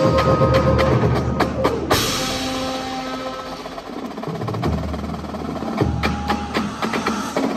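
Drum corps field show music heard from the stands: a percussion-heavy passage of quick drum and mallet strikes over deep, sustained bass notes, with a bright crash about two seconds in.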